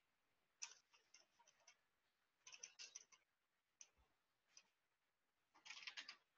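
Faint computer keyboard keystrokes: short bursts of quick taps with pauses between, as a command-line path is typed and backspaced over. A few single key presses fall between the bursts.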